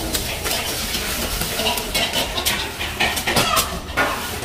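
Kitchen work sounds: a tap running at first, with dishes and utensils clinking and paper rustling.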